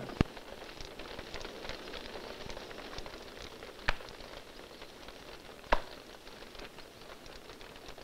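Wood crackling and popping as a pile of wooden shrine plaques burns, with a sharp pop just after the start. Then two sharp hand claps, a Shinto priest's ritual clapping, about two seconds apart.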